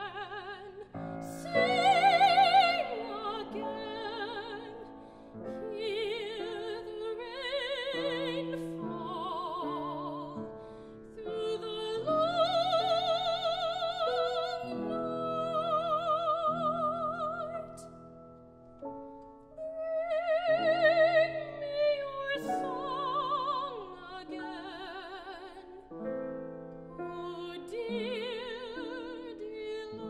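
A classical soprano singing an art song with a wide vibrato, accompanied by a grand piano. The voice swells loudest about two seconds in and again about twenty-one seconds in.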